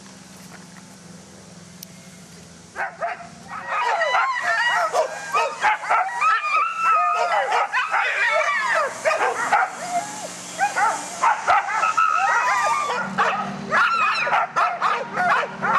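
A team of harnessed Alaskan sled dogs barking, yelping and howling together in a loud, overlapping clamour. It is the excited racket of sled dogs in harness waiting to run. It starts about three seconds in, after a quieter stretch with only a faint low hum.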